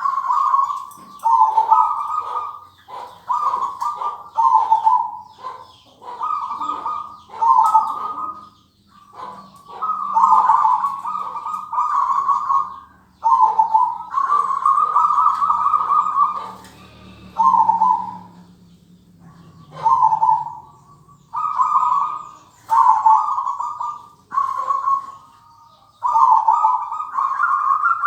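Zebra dove (perkutut) cooing: short rippling phrases near 1 kHz, repeated about every second or two, with a few longer pauses.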